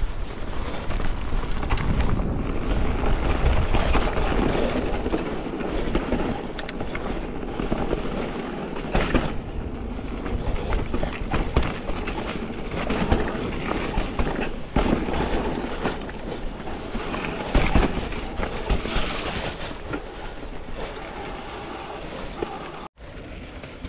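Mountain bike ridden fast down a rocky dirt trail, heard from a GoPro: tyre rumble over stones and roots with constant rattling and irregular knocks from the bike. It cuts off abruptly near the end.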